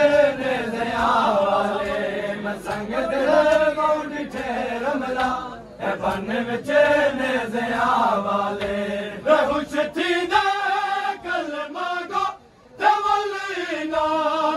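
A crowd of men chanting a noha, a Shia mourning lament, together in a loud rhythmic chant, with sharp slaps of chest-beating (matam) through it. The chant breaks off briefly about twelve seconds in, then resumes.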